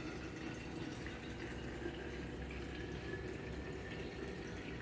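Faint, steady trickling of liquid.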